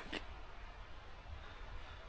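Quiet outdoor background: a faint, steady hiss with a low rumble and no distinct event.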